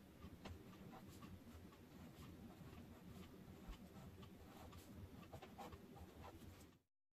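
Near silence: faint room tone with a low hum and a few scattered soft clicks, cutting to dead silence near the end.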